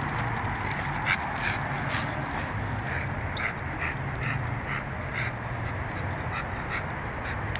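Wind rumbling on the microphone, with a quick, regular run of short animal sounds, a little over two a second.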